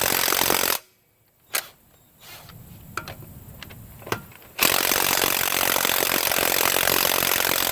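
HANS 1/2-inch cordless impact wrench hammering on a car lug nut that is torqued to 100 ft-lb. The hammering stops about a second in, then restarts about halfway through and runs for roughly three more seconds. In the pause there are a few light clicks. The wrench is struggling and fails to break the nut loose.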